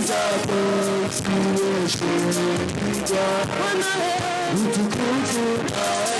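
Gospel praise-and-worship music from a live church band: a sung melody over instruments, with a steady drum beat.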